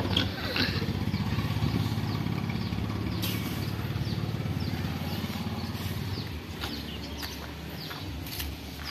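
An engine running nearby, strongest over the first six seconds and then fading, with birds chirping throughout.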